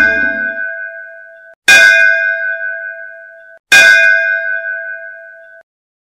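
Temple bell rung in three strokes about two seconds apart. The first is struck just as the sound begins. Each stroke rings with a clear, steady tone that fades, then is cut off abruptly just before the next.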